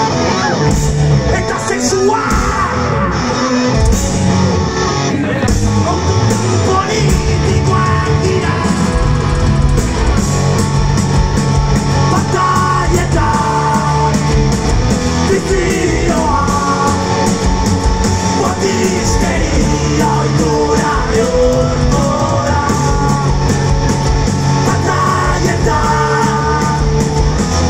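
Live rock band playing loudly, with a singer's voice and a steady beat of drums and cymbals.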